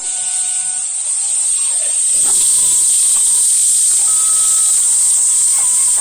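Fireworks spraying sparks with a loud, steady hiss that swells about two seconds in, with no bangs.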